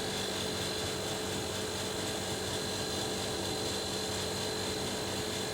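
Split air conditioner running steadily in heat mode: an even hum of the compressor and fan, with a few constant tones over it.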